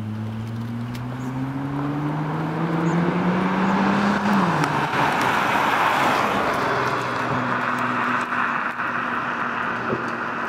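Nissan GT-R's twin-turbo V6 accelerating hard toward and past, its pitch rising steadily for about four seconds and then dipping sharply. A loud rush of engine and tyre noise follows as the car goes by, then a steadier, fading engine note as it pulls away.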